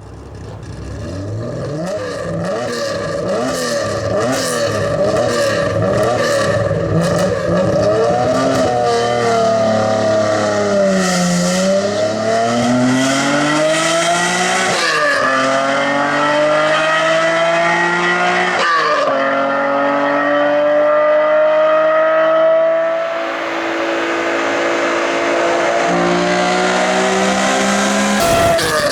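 Nissan Skyline GT-R (KPGC10) S20 straight-six with a Power Craft exhaust, driven and accelerating. Its pitch climbs, then drops sharply at each gear change, several times over.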